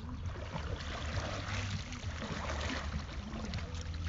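Kayak paddle strokes dipping and splashing as the kayak moves off into the river, with water swirling around the hull over a low steady rumble.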